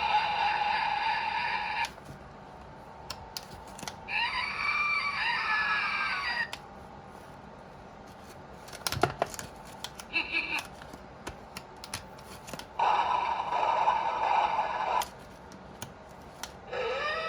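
Handheld megaphone's speaker playing a string of short spooky sound effects one after another, including a scream and a sharp crack. Between the effects come pauses with sharp clicks.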